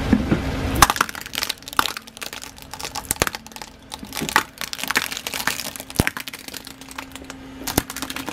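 A car tyre rolling slowly over a row of shiny Christmas bauble ornaments and crushing them: a long, irregular run of sharp cracks and crunchy snaps, over a steady low engine hum.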